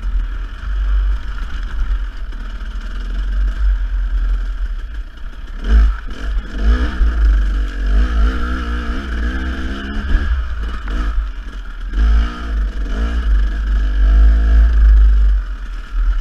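Dirt bike engine being ridden over rough trail, its revs rising and falling again and again, with a heavy low rumble underneath. A few sharp knocks come partway through.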